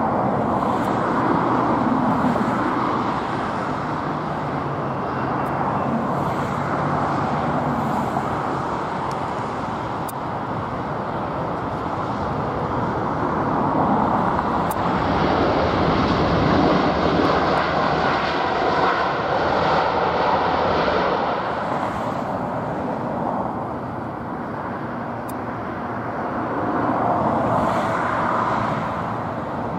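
Jet airliner engines on landing approach, a continuous rushing roar that grows brighter and hissier for several seconds in the middle, then eases off. A few faint clicks from the camera tripod's pan head sound over it.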